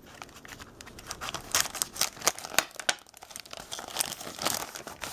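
Plastic postal mailer crinkling and tearing as it is cut open with scissors and pulled apart, in quick irregular crackles, with more crinkling about four seconds in as a small box is drawn out of it.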